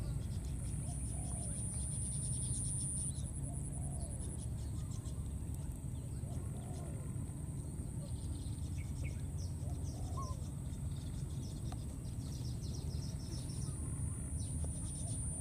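Outdoor wildlife ambience: a steady high trill that pulses in places, with short rising-and-falling bird calls repeating every second or two and a low background rumble.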